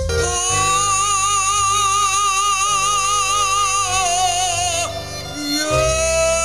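Live stage performance: a singer holds one long note with wide vibrato over band accompaniment, then, after a short break, starts a new held note near the end.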